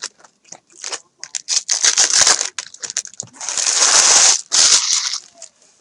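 Plastic-foil trading-card pack wrappers crinkling and tearing as packs are opened. There are two long crackling spells, one about a second and a half in and a longer one from about three and a half to five seconds, with small clicks and rustles between.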